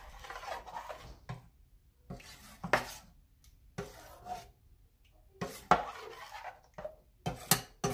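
Spoon stirring thick bacalaíto batter in a stainless steel pot, scraping and knocking against the pot in irregular strokes, with a few sharp clinks.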